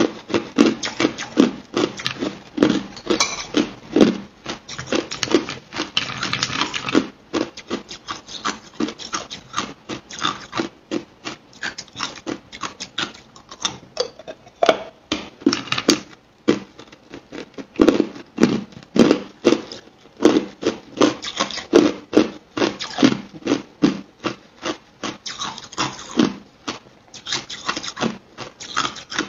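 Hard clear ice being crunched between the teeth: rapid sharp cracks, several a second, with a brief lull about two-thirds of the way through.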